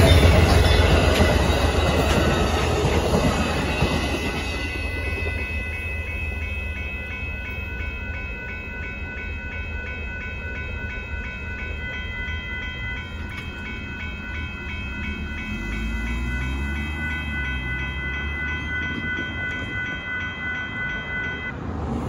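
Amtrak Texas Eagle passenger train rolling past a grade crossing, its rumble fading away over the first few seconds. The crossing's warning bell keeps ringing steadily and stops near the end as the crossing clears.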